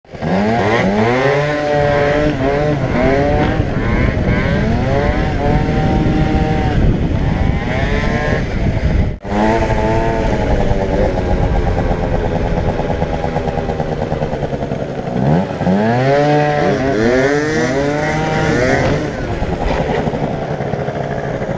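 Yamaha Aerox scooter's two-stroke Minarelli engine accelerating again and again, its pitch climbing steeply and then holding high, with a brief break about nine seconds in.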